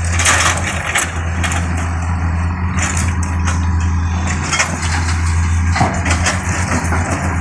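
Tata Hitachi EX110 excavator's diesel engine running steadily, with a noisy rush in the first second and several sharp knocks scattered through.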